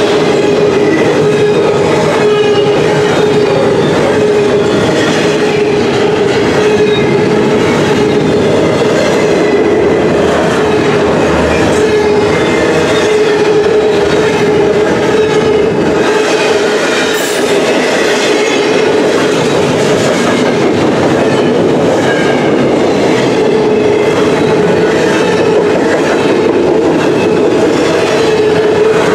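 Double-stack intermodal container train rolling past at close range: a loud, steady rumble of wheels on rail, with a steady whine running through it.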